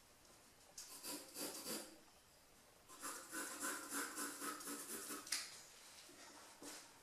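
Pencil sketching on paper: quick repeated strokes scratching and rubbing across the sheet, a short run about a second in and a longer run from about three seconds, ending in a sharp tap.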